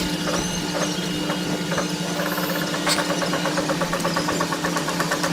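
Vehicle engine running steadily at low revs, with a rapid, even ticking that starts about two seconds in.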